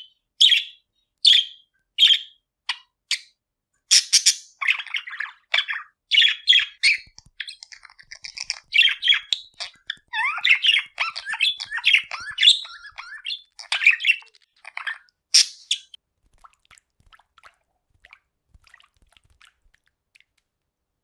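Budgerigars calling: sharp, high chirps about once a second at first, then a busy run of warbling chatter. A loud call comes at about fifteen seconds, and after that there are only faint, scattered chirps.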